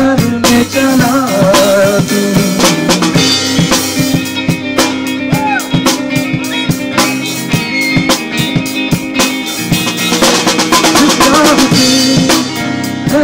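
A live rock band playing: a drum kit driving a steady beat of snare and bass drum hits under an electric guitar.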